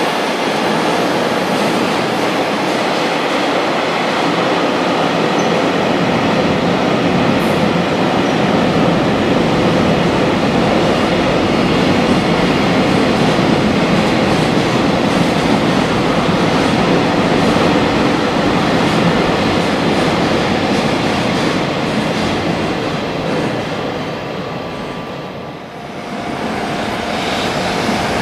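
Freight train's wagons rolling past on the rails: a loud, steady rumble and wheel noise. It dies away about 25 seconds in as the last wagon clears, then a new sound with a steady tone rises near the end.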